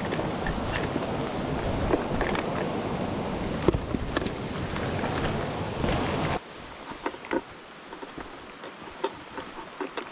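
Steady rush of a mountain stream and rain, with scattered knocks of footsteps over wet rocks. About six seconds in it cuts off abruptly to a much quieter forest, where single footsteps crunch on leaf litter.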